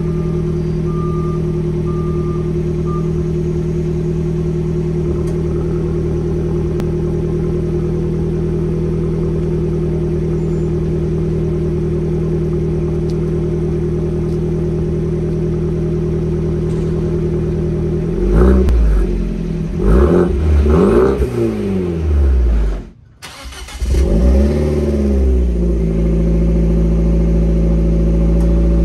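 A Fiat 124 Spider Abarth's 1.4-litre turbocharged four-cylinder idles steadily through a Good Win Racing 2.5-inch crosspipe and a Magnaflow System One exhaust with resonator. About 18 seconds in it is revved in several quick blips that rise and fall, cuts out briefly, is blipped again, then settles back to idle.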